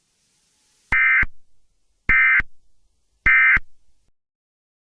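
Emergency Alert System end-of-message data tones: three short bursts about a second apart, each trailing off with an echo, marking the end of the alert.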